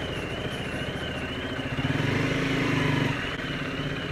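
Vehicle engine running in traffic, swelling louder for about a second midway, with a faint warbling high tone running alongside.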